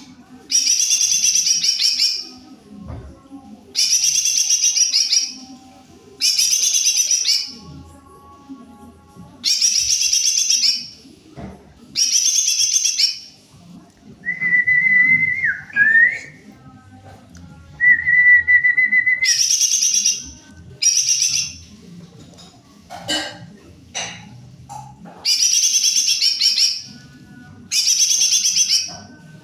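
Cucak ijo (green leafbird) singing in repeated bursts of fast, high, chattering trills, each about a second and a half long. Midway there are two long steady whistled notes.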